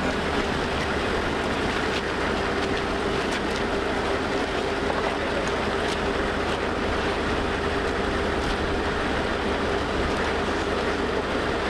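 Steady drone of a large engine running, a constant hum with one steady mid-pitched tone through it, and a few faint knocks now and then.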